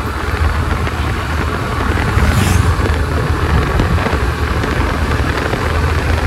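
Wind buffeting a helmet-mounted microphone while riding a two-wheeler, a low steady rumble with the engine running underneath. A brief hiss comes about two and a half seconds in.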